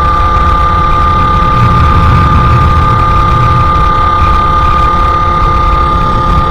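Sherco SM-R 50's 50cc two-stroke engine, breathing through a KRM exhaust, buzzing at steady, fairly high revs while riding along, with no change in pitch.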